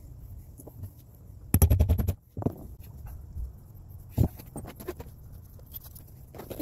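Small workshop handling noises from leatherworking on a bench: a quick rattle of about ten sharp clicks about one and a half seconds in, then scattered single taps and knocks.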